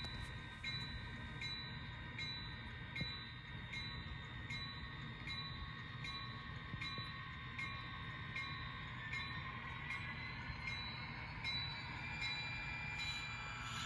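HO scale sound-equipped model diesel locomotive ringing its bell, a steady stroke about twice a second, over the low hum of the engine sound. About nine seconds in, a whine rises in pitch as the engine sound revs up.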